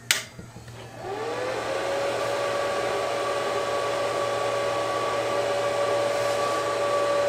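Power switch clicks on, and about a second later the cooling fan of a Mitsushi 250A welding machine spins up: its whine rises, then settles into a steady whirring hum.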